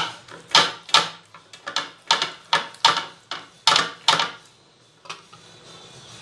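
Hand patting thalipeeth dough flat onto an oiled tawa: about ten sharp pats, two or three a second, which stop about four seconds in.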